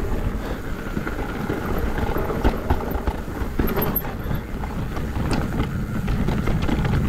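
Downhill mountain bike rolling fast over a dirt trail: tyre and drivetrain noise with a low rumble, broken by occasional short knocks and rattles from the bike.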